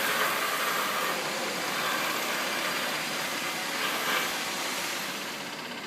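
Steady construction-site machinery noise: a continuous din that eases slightly near the end.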